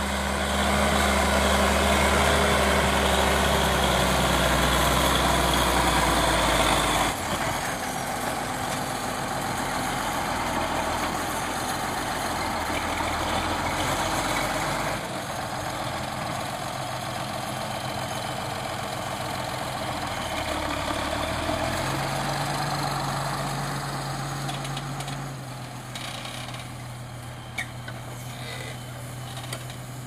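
Fiatagri 180-90 tractor's six-cylinder diesel engine running steadily while pulling a deep plough. It is loudest for the first several seconds, then drops in level. Its low note rises in pitch about two-thirds of the way through, and the sound grows fainter near the end.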